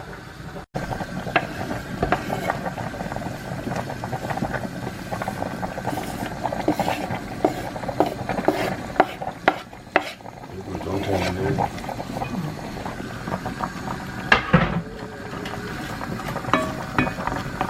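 Metal utensils stirring and scraping in a pot and clinking against dishes: a continual run of short knocks and scrapes.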